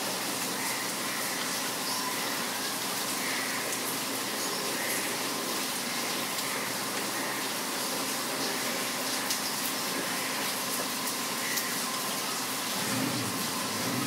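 Steady rain falling, with faint bird chirps now and then.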